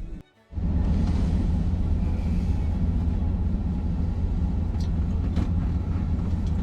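Steady low rumble of a vehicle's engine and cabin noise, heard from inside the vehicle, starting just after a brief dropout.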